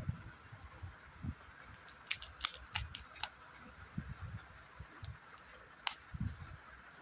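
Foil wrapper of a toy-surprise chocolate egg crinkling and crackling as it is handled and peeled, with sharp clicks in a cluster about two to three seconds in and one more near six seconds, over soft low knocks of the egg and cups on the table.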